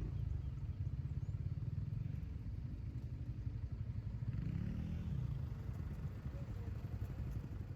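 A motor vehicle engine running with a steady low rumble, its pitch rising and falling briefly around the middle.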